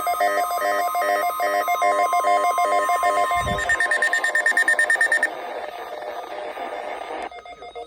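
Electronic emergency-alert tones: a rapid, repeating beeping pattern over a steady tone, which gives way about three and a half seconds in to faster beeping, with a brief low thump at the change. After about five seconds it drops to a quieter hiss that cuts off suddenly near the end.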